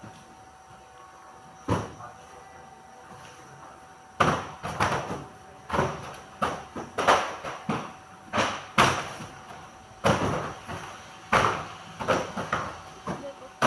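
Cardboard packaging and small product bottles being handled: one knock near two seconds in, then from about four seconds on a busy run of irregular knocks, clatter and rustling.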